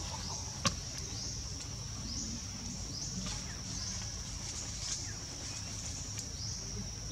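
Outdoor ambience: a steady high-pitched drone with short rising chirps repeating about once a second over a low rumble, and one sharp click about two-thirds of a second in.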